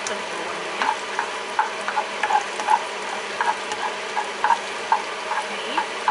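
Diced garlic sizzling in hot oil in a nonstick frying pan while a spatula stirs it, knocking and scraping against the pan in repeated light, irregular taps.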